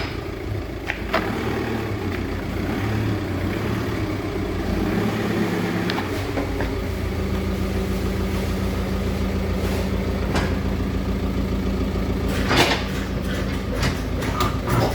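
VW Touran 2.0 TDI four-cylinder diesel engine idling steadily with a defective fuel injector, with a few short sharp clicks over the running; the engine note changes about six seconds in.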